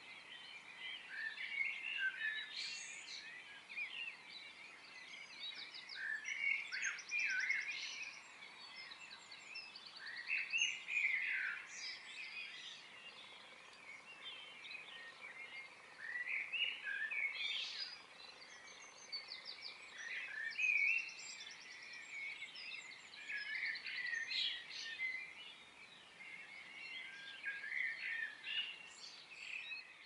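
Several garden birds chirping and calling in clusters, with quick trills and rapid clicking rattles mixed among the chirps.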